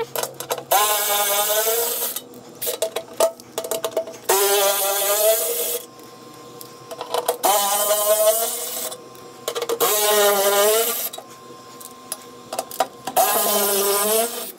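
Cordless electric ratchet with a T40 Torx bit whirring in five bursts of about a second and a half each, with short clicks between, as it backs out the screws holding the skid plate's oil-filter access flap.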